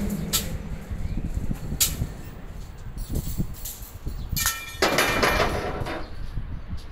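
Cargo-loading noise from a port where steel bars are loaded: a steady low rumble with a few sharp knocks, and a loud, harsh burst about four and a half seconds in that lasts about a second.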